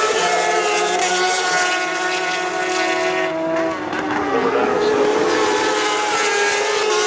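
Several racing sport motorcycles' engines running at high revs as the bikes race past. Their pitch holds mostly steady, dips and climbs again about four seconds in as a bike comes off the throttle and accelerates.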